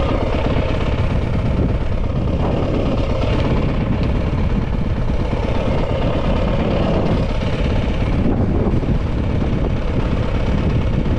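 Yamaha WR250F dirt bike's single-cylinder four-stroke engine running steadily, with heavy low rumble throughout.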